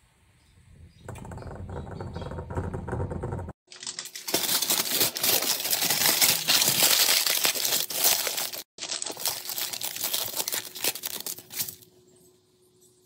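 Aluminium foil being crinkled and pressed around a glass jar, a loud dense crackling in two stretches with a brief break between them. A low rumble comes before it in the first few seconds.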